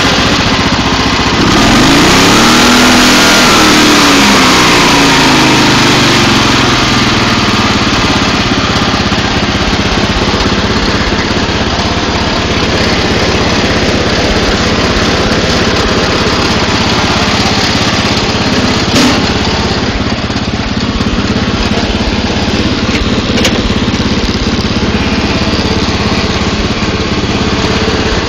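The 10 hp Briggs & Stratton single-cylinder engine of a Montgomery Ward riding mower running on its first start after winter storage: it revs up about two seconds in, eases back down over the next few seconds, then runs steadily.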